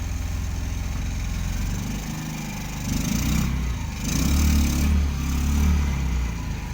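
Motorcycle engine idling, then revved a few times about halfway through before settling back to idle near the end.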